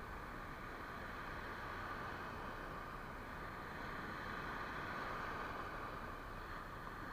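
Steady rush of surf on a beach, mixed with wind on the microphone. It swells a little about halfway through.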